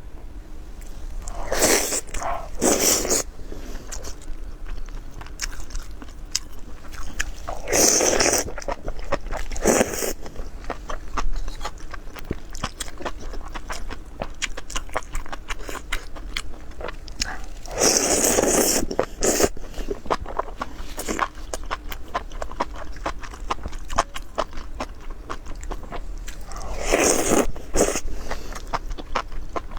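Close-up eating sounds: loud crunchy bites, usually two close together, recurring every eight to ten seconds, with steady crisp chewing clicks in between.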